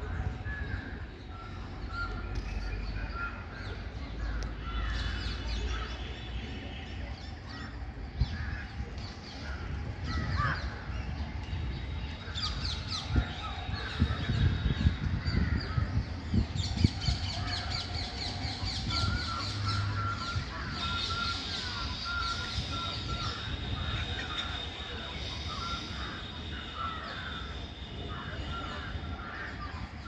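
Several birds chirping and calling in a tree, many short notes overlapping, some repeated rapidly in runs. A steady low rumble runs underneath.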